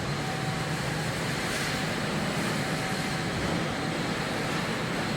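Steady machinery noise of a truck assembly hall: an even hiss with a faint steady hum and whine, no distinct knocks.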